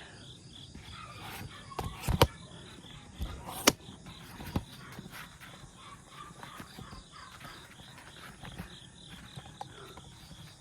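Crickets chirping faintly and steadily, with a few sharp clicks or knocks close by about two and three and a half seconds in.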